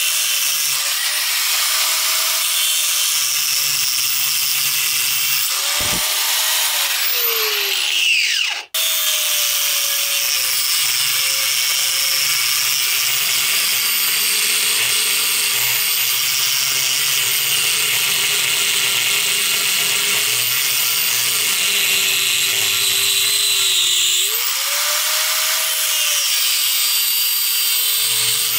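Angle grinder with a thin cut-off wheel grinding through an exhaust manifold flange beside a broken stud, slicing a slot so the stud can be freed. The motor's pitch sags and recovers as the wheel bears into the metal, and the sound breaks off for an instant about nine seconds in.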